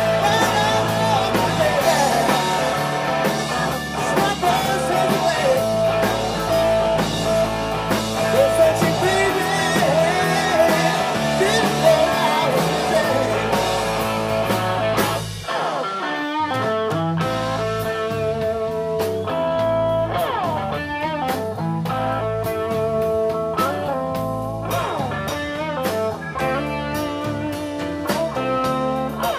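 Live blues band playing an instrumental passage: harmonica lead played into a vocal microphone, with bending, wavering notes, over electric guitars, bass and drums. The bass drops out briefly about halfway through before the band comes back in.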